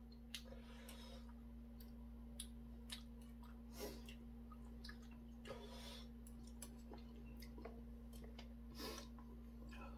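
Faint chewing of boiled chicken and small clicks of metal chopsticks against a stainless steel bowl, over a steady low hum.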